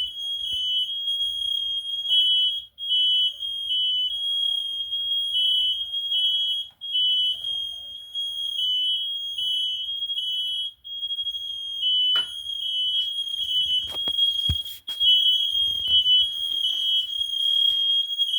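Several Kidde i9010 and FireX i4618AC smoke alarms sounding together, set off by humidifier steam: high-pitched beeps from different alarms overlapping out of step. A few short knocks in the second half.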